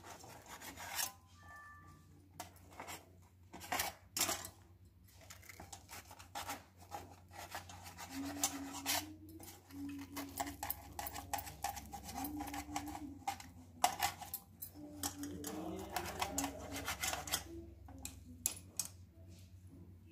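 Paratha rolls handled and torn apart on a stainless steel plate: a run of irregular clicks, taps and scrapes against the metal.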